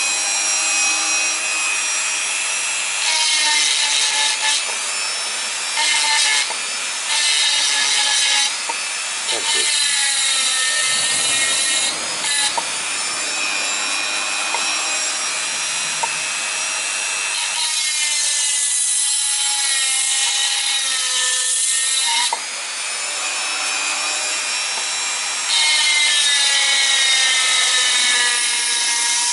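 Dremel rotary tool at middle speed running an aluminium oxide grinding stone bit into stone: a steady high motor whine over a gritty grinding rasp. The grinding gets louder and drops back again several times as the bit is pressed in and eased off.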